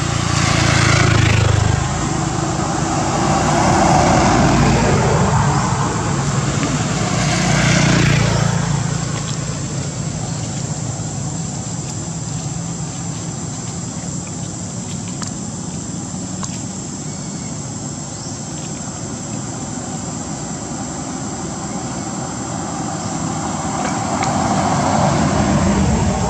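Motor vehicles passing by, each swelling and fading: about a second in, around four and eight seconds in, and again near the end, with a steady hum of road noise and a thin high whine in between.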